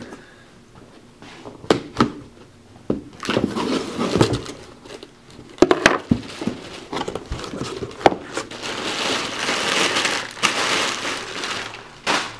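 Rummaging in a cardboard shipping box: crinkling and rustling of the contents, with several sharp knocks. The rustling grows loudest about two-thirds of the way in.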